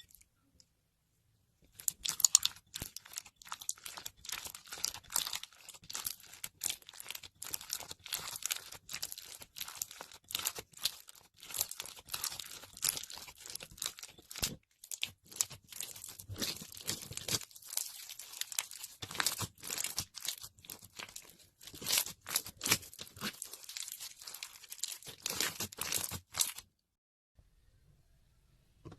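Slime being squeezed and worked by hand, giving a close run of crackling, crunching clicks. It starts about two seconds in and stops a few seconds before the end.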